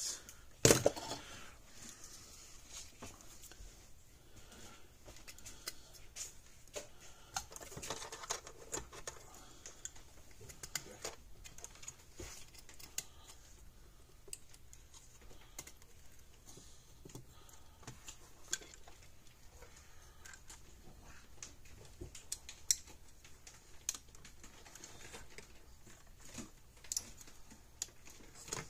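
Scattered small clicks, taps and light rustling as wires, spade connectors and a circuit board are handled and fitted into a plastic fence energizer case, with one sharper knock about a second in.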